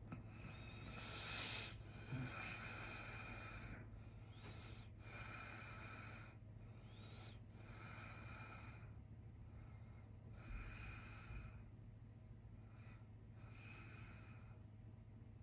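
A sleeping man breathing noisily: a string of breaths in and out, each one to two seconds long with short pauses between them, over a steady low hum.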